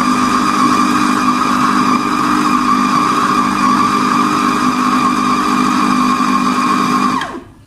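Electric food chopper's motor running steadily at full speed, chopping minced mutton, then winding down with a falling whine and stopping about seven seconds in.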